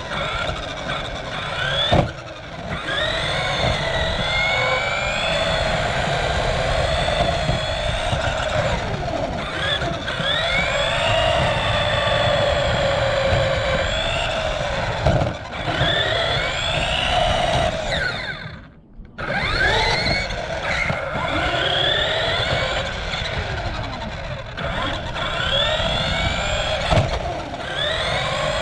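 Radio-controlled car's motor, heard from a camera mounted on the car, whining up and down in pitch again and again as it speeds up and slows, over a rumble from the wheels on the pavement. A few sharp knocks, and the sound dips out briefly about two-thirds of the way through.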